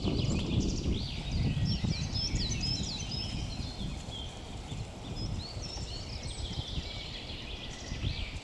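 Several songbirds singing at once, a dense run of short high chirps and whistles, over a low rumbling noise that is loudest at the start and fades over the first few seconds.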